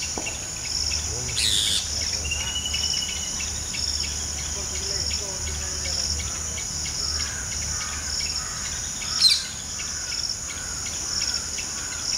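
Steady chorus of insects buzzing high in even pulses, with birds calling over it: a sharp chirp about a second and a half in, a short level whistle soon after, and the loudest chirp about nine seconds in.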